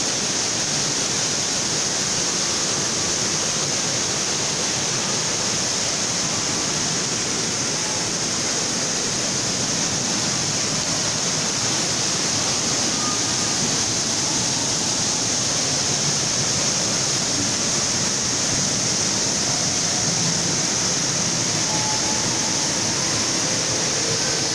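A small waterfall cascading over rocks, water rushing steadily.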